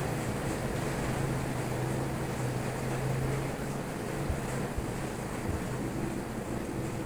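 Steady rain falling, an even hiss, with a low steady hum underneath that fades about halfway through.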